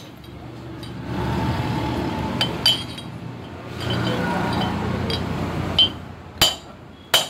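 Hammer striking a steel drift set in a brake drum hub, about six sharp metallic clinks with a short ring, coming quicker near the end: driving out the rear wheel bearing, which is pitted and being replaced. A rushing noise swells up twice in the middle.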